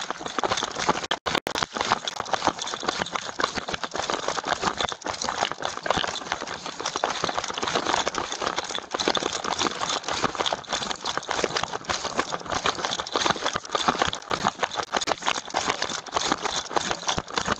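Police body-worn camera jostled hard as its wearer runs on foot: a dense, irregular clatter of footfalls and gear and clothing rubbing and rattling against the microphone. The audio drops out briefly about a second in.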